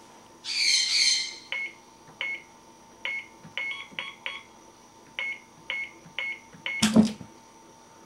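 Short electronic beeps from the black box, each with a click, about a dozen at irregular spacing, after a louder hissing burst near the start. Near the end comes a loud clunk as the box's front panel drops open.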